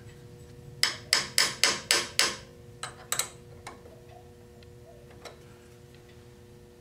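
Quick sharp metal-on-metal taps at the lathe's lantern tool post: six taps at about four a second, then two more, then faint clicks. They come as the cutoff tool is knocked toward square because it is not yet straight.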